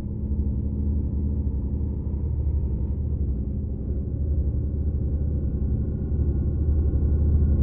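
Ambient drone music: a deep, low sustained drone with several steady held tones above it, growing slightly louder near the end.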